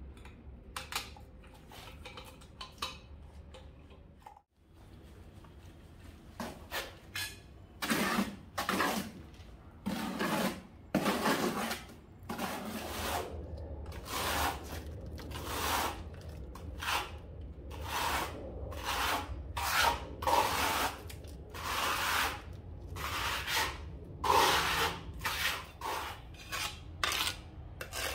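Steel trowel scraping tile mortar onto a wall and combing it out, in repeated strokes about one a second, starting some six seconds in.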